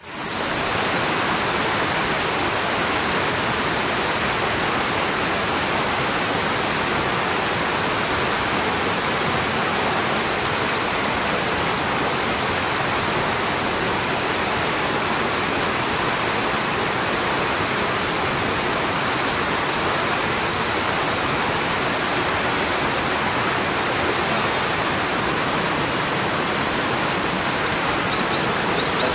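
Shallow mountain river rushing over rocks and boulders in rapids: a steady, unbroken noise of white water.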